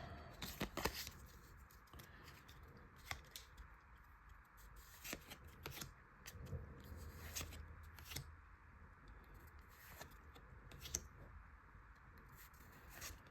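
Trading cards being handled and flipped through: faint, irregular clicks and soft rustles of card stock as the cards of a freshly opened Pokémon booster pack are slid one behind another.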